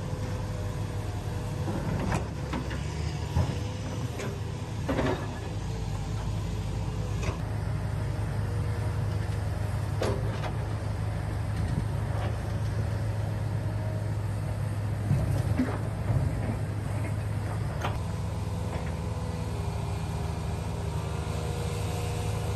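Huina 1593 radio-controlled excavator's small electric motors whining in short runs that start, stop and change pitch, over a steady low hum, with a few knocks and clicks.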